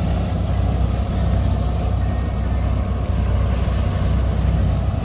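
Tugboat engine running steadily with a deep, even drone as it pushes a car ferry across the river.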